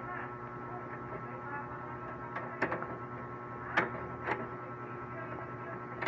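A few light metallic clicks of a screwdriver working the rear screws of a Dell desktop tower's steel case, over a steady electrical hum.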